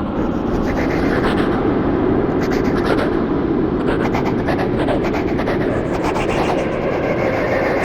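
Creepy, echoing horror sound effect: a steady, dense low rumble with a rough, rapidly crackling grain, holding at an even loudness.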